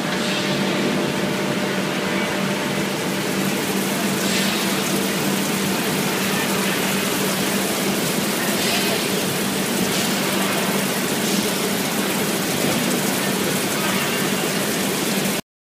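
Abbey Etna 4-inch tube mill running in production: steady machinery noise from the forming roll stands and drives, with a constant low hum, cutting off suddenly near the end.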